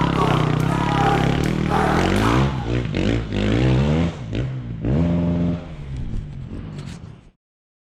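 Dirt bike engines revving up and down as they climb, with scrapes and clatter. The sound cuts off abruptly about seven seconds in.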